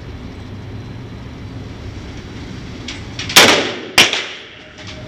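Two sharp rifle shots about half a second apart, a little past three seconds in, from an AR-15 being sighted in at a shooting range, over a steady low hum.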